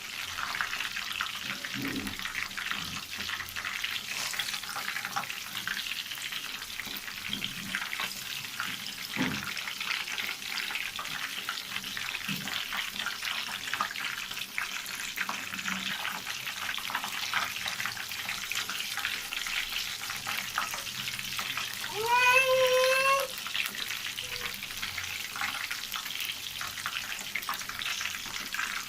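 Oat-coated chicken legs frying in hot oil, a steady crackling sizzle. About three-quarters of the way through comes a single short high-pitched squeal, about a second long, the loudest sound in the stretch.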